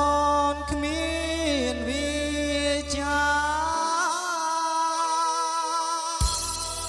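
A man singing into a handheld microphone, amplified through a powered audio mixer and PA, over a music backing track. He holds long notes with vibrato; the backing's bass drops out for a couple of seconds in the second half.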